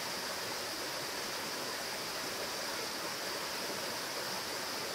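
Steady rush of a small mountain stream flowing over rocks.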